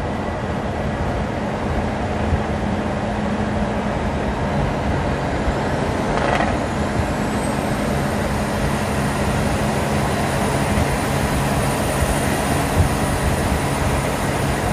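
Peterbilt semi truck cruising at highway speed alongside, its diesel engine droning steadily over a haze of road noise. About halfway through, a high whine rises and then holds.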